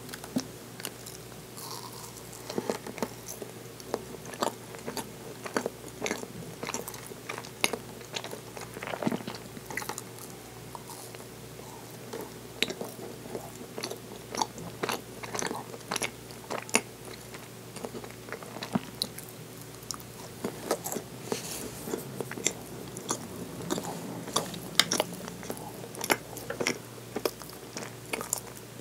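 Close-miked eating: biting into and chewing baked cream cheese tart, with many small crunches from the pastry crust and wet mouth sounds. A faint steady hum runs underneath.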